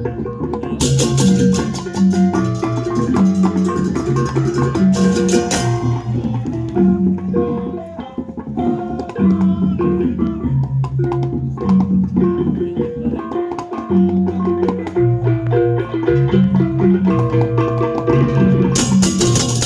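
Balinese gamelan balaganjur (beleganjur) playing: tuned gongs and drums beat out a driving, repeating pattern. Clashing cymbals ring out loud from about a second in to about six seconds in, and come back near the end.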